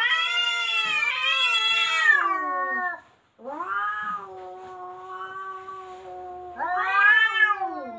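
Cats caterwauling at each other in a threat standoff: long drawn-out yowls that rise and fall in pitch. A loud wail at the start breaks off about three seconds in, a long low moan follows, and it swells into another loud yowl near the end.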